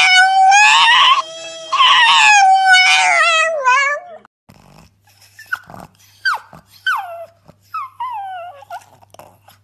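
Pug howling in one long, loud, wavering cry that weakens briefly about a second in and stops about four seconds in. After a short gap, another pug gives about five short whines, each falling in pitch.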